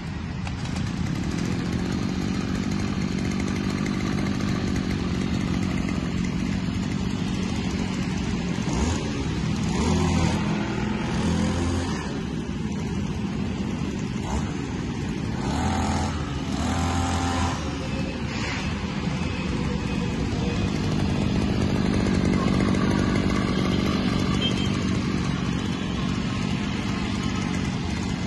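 Oshima 330 brush cutter's 32.6 cc air-cooled two-stroke engine running steadily, its speed changing several times through the middle.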